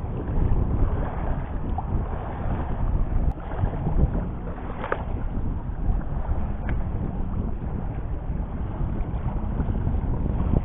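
Strong wind buffeting the microphone: a dense, low rumble that surges and eases in gusts, with a few faint clicks.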